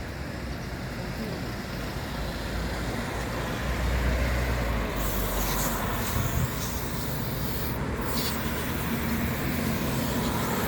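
A motor running steadily with a low hum and a noisy rush over it, getting louder about four seconds in.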